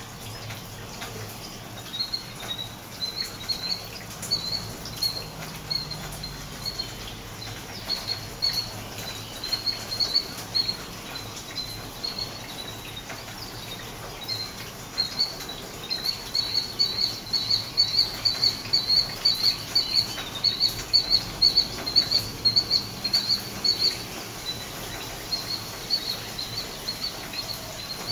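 Killdeer calling: a long run of quick, high notes, several a second, coming in bursts and growing louder and denser past the middle. Rain patters steadily underneath.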